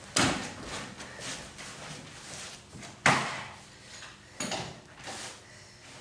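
Wooden knocks as a plywood board held in yellow bar clamps is handled and set upright on a concrete floor: a sharp thud just after the start and another about three seconds in, then a few lighter knocks.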